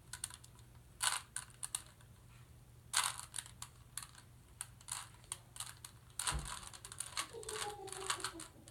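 Plastic clicking and clacking of a 3x3 Rubik's cube as its layers are turned in quick irregular bursts during a solve, with a low thump about six seconds in.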